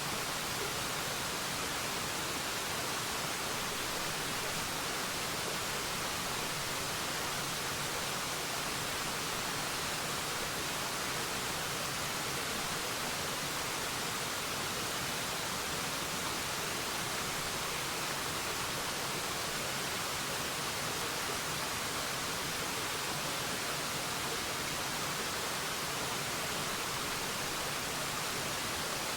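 Waterfall: a steady, even rush of falling water, strongest in the upper range, with no change or break.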